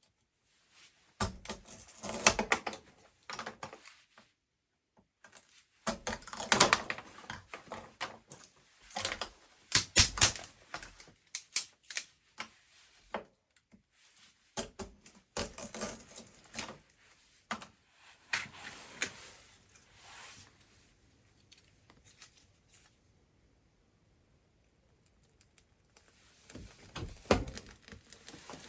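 Irregular bursts of clattering knocks and clicks in a small room, broken by quiet gaps.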